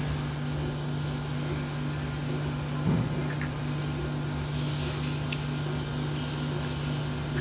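Steady low electrical machine hum, like an appliance motor or air conditioner running, with a single low thud about three seconds in.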